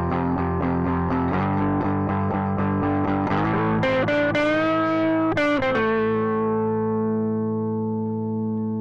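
Outro music of distorted electric guitar: chords struck several times a second, then bent notes, then a final chord left ringing and slowly fading.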